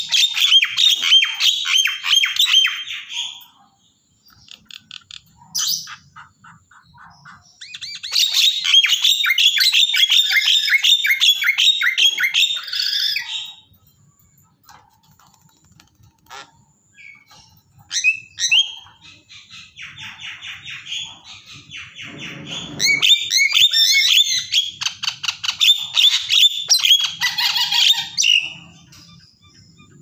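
Caged Javan mynas calling in long runs of rapid, repeated notes lasting several seconds each, three such runs, with shorter single calls between them.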